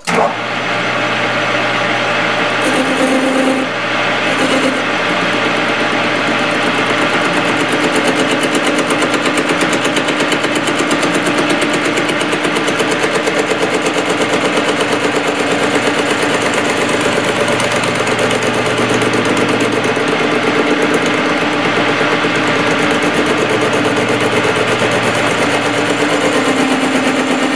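Metal lathe running, turning an old spur gear on a mandrel: a steady machine sound with a fast, even pulsing that starts suddenly and holds throughout.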